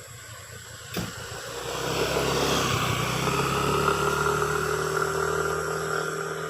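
Motor vehicle engine and tyre noise from traffic driving by on a highway. It swells over about a second, holds steady, and starts to fade near the end. A short click comes just before it.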